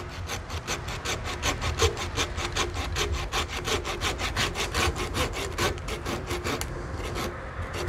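Small hand saw cutting through a bonsai's trunk in quick, even strokes, about five a second, severing an air-layered section from the tree. The strokes pause briefly near the end, then resume.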